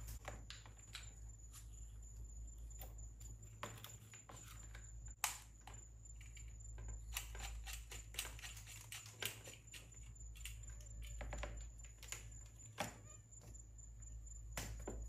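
Scattered light clicks and taps of a small metal carburetor being handled and fitted back onto a 125cc pit bike engine, the sharpest clicks about five seconds in and near the end, over a steady low hum.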